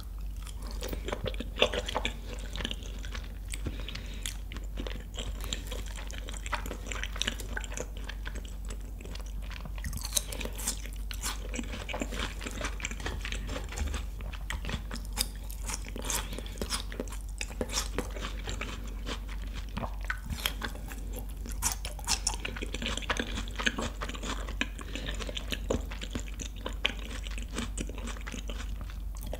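Close-miked chewing of raw beef tartare with a slice of cheese, with many short mouth clicks and smacks.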